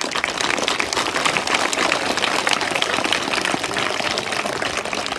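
A group applauding: many hands clapping in a dense, steady patter that starts suddenly and eases off near the end.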